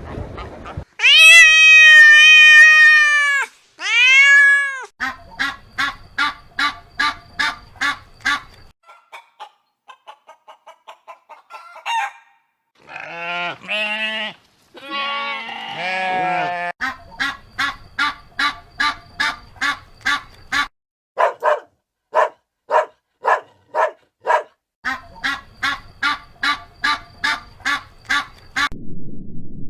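A string of different animal calls: two long, steady pitched calls near the start, then runs of short, evenly spaced calls, with a group of honking calls about halfway through.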